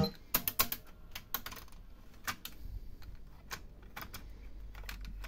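Pioneer KEH-M9300RDS car cassette stereo being handled: a string of sharp plastic clicks and clacks at uneven spacing as its front panel is opened and a cassette is pushed into the tape slot, over a low hum.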